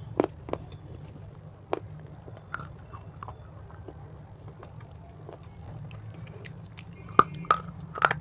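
Crisp chips being bitten and chewed close to the microphone. A few sharp crunches come in the first two seconds, then softer, sparse chewing, then loud crunchy bites from about seven seconds in.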